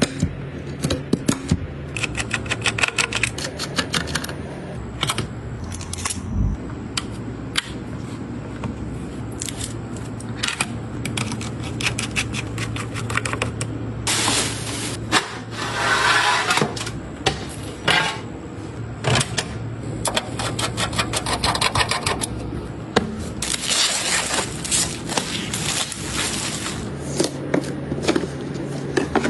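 Handling noise from assembling a gaming PC: irregular clicks, taps and small knocks of plastic and metal parts being fitted, with a couple of longer stretches of rustling and scraping.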